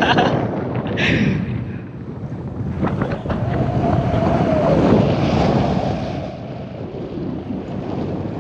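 Rushing wind buffeting the camera microphone of a paraglider in flight, a gusty roar that swells and fades and eases off after about six seconds.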